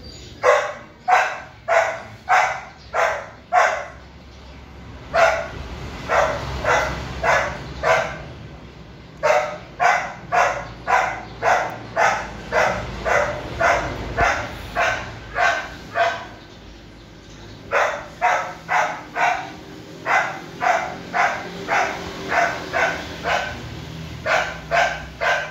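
Four-month-old golden retriever puppy barking over and over, about two barks a second, in four runs broken by short pauses.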